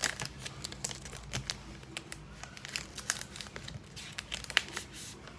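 Packaging crinkling and crackling as it is handled, a dense run of small irregular crackles.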